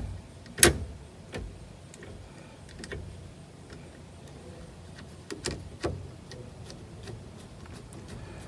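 Scattered small metallic clicks and taps from a screwdriver and a small screw as someone struggles to fit the screw into a hard-to-reach spot on a steering column while refitting a turn signal switch. There is one sharper click about half a second in, then several fainter ones spread out.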